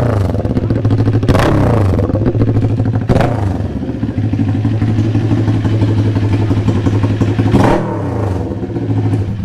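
Kawasaki Ninja 400 with an SC-Project aftermarket exhaust, loud: idling steadily, with four sharp throttle blips that each fall back to idle, at the start, about 1.5 s in, about 3 s in and near the end.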